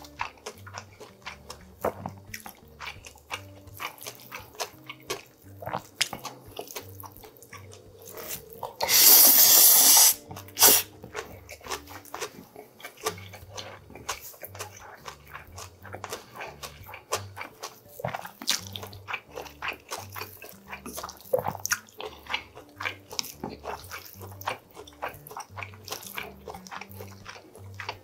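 Close-miked eating of bibim noodles and grilled pork neck: wet chewing and small clicks all through, with one long, loud slurp of noodles about nine seconds in and a short second slurp just after.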